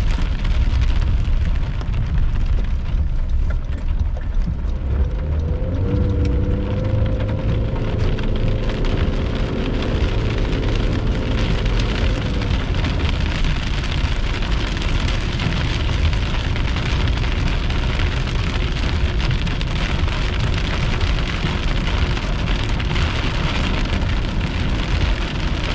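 Steady heavy rain falling during a thunderstorm, over a strong low rumble. A faint humming tone comes in about five seconds in and fades by about twelve seconds.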